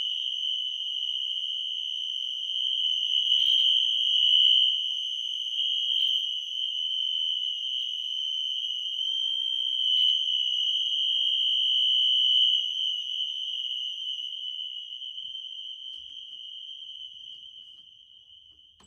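Electronic fire alarm horns sounding one steady, continuous high-pitched tone, set to continuous rather than the temporal code-3 pattern: the system in alarm from a pulled pull station. It grows fainter over the last several seconds.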